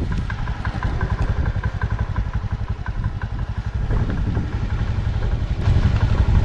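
Motorcycle engine running as the bike rides along a dirt road: a steady, fast low pulsing with light rattles over it, a little louder near the end.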